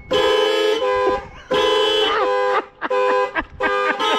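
Several add-on car horns of different pitches sounding together in repeated on-off blasts, switched by the car's blinker circuit like a homemade car alarm.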